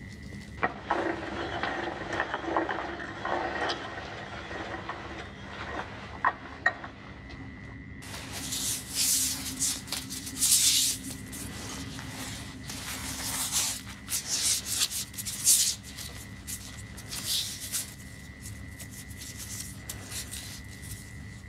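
Hands working the straps and buckles of a metal-hinged limb brace: rubbing and scraping with a few clicks, then about halfway through a run of short rustling bursts of strap and fabric, over a faint steady high tone.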